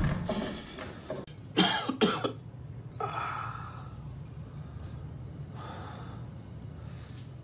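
A man coughing and breathing heavily: a sharp intake at the start, two hard coughs about a second and a half in, then groaning breaths, over a steady low hum.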